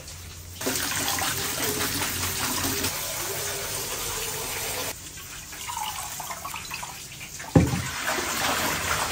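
Water running from a tap, starting about half a second in and easing off at about five seconds, followed by quieter splashing and a single sharp knock near the end.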